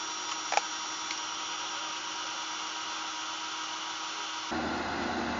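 Philips Airfryer running mid-cook, its fan giving a steady rushing noise with a faint hum. There is one short click about half a second in, and near the end the noise abruptly steps up and becomes fuller.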